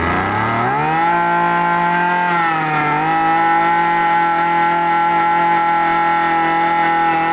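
Mitsubishi TL23 brush cutter's small two-stroke engine, just started, being throttled up: the pitch rises over the first second to a high, steady whine, sags a little about three seconds in, then holds at full speed.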